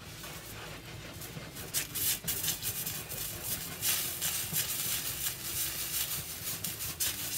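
Ravioli and broccoli sizzling and crackling in a hot skillet of butter and pasta-water sauce as they are gently stirred and tossed with a utensil, with scattered light clicks. The sizzle grows a little louder after the first second or so.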